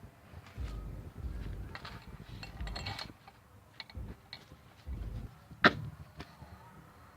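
Hand work on an engine: scattered knocks, rustles and dull thuds as parts and tools are handled, with one sharp, loud click a little before six seconds in.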